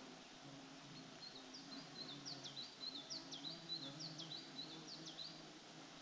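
A small songbird singing a quick run of repeated high, sharply falling notes, about two a second, starting about a second in and stopping near the end.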